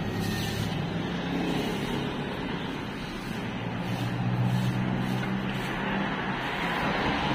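Street traffic: car and motorbike engines running on the road, with a low engine drone that grows louder about four seconds in as a vehicle comes closer.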